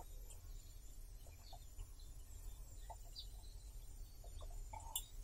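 Faint quiet background with scattered short, soft chirps and clicks.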